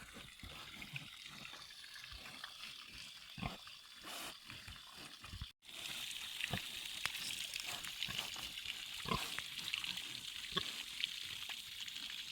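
Mangalitsa pigs grunting now and then over a hiss of water. The hiss becomes louder and steadier after a sudden cut about five and a half seconds in.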